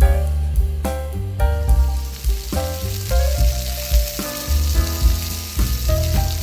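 Food sizzling in a hot pan, a steady high hiss that comes in about a second and a half in. Background music with piano and bass plays throughout.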